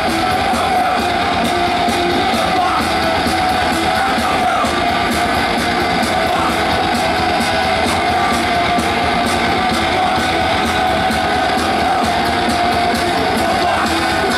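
Heavy metal band playing live through a festival PA: distorted electric guitar over fast, even drumming, loud and unbroken.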